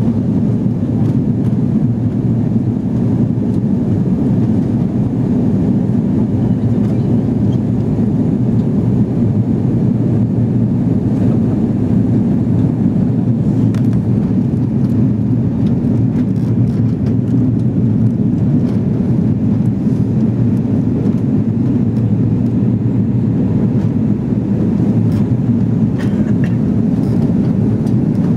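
Steady, deep cabin noise inside a jet airliner on its landing approach, the engines and airflow heard through the fuselage.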